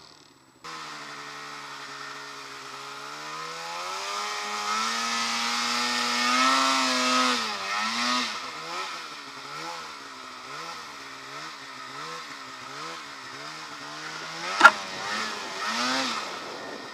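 Snowmobile engine working through deep powder. Its revs climb steadily for a few seconds, drop, then rise and fall over and over in quick throttle swings. A single sharp knock comes about three-quarters of the way through.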